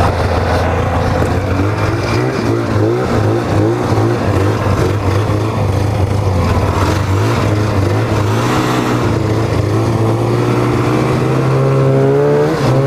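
1995 Polaris Indy Trail 500 snowmobile's two-stroke engine running as the sled pulls away and is ridden along, its pitch wavering with the throttle and rising a little near the end.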